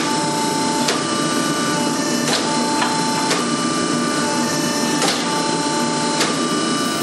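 48-ton hydraulic forging press running, squeezing a hot stainless steel bar: a steady pump whine of several fixed tones that break off and restart with each stroke, and a sharp knock every second or two as the ram cycles.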